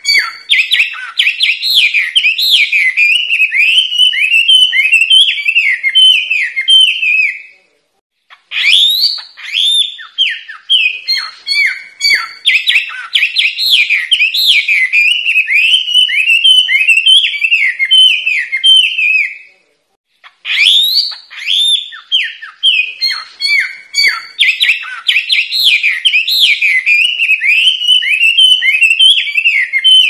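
Chinese hwamei singing: long, loud runs of quick, varied whistled notes, each run opening with an upward sweep, broken by two brief pauses about 8 and 20 seconds in.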